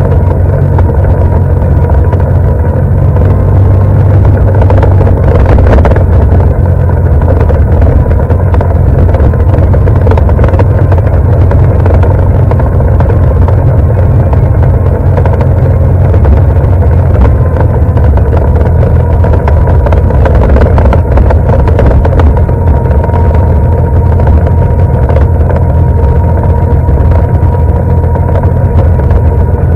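ATV engine running at a steady speed under way, loud and close, its note holding level without revving up or down.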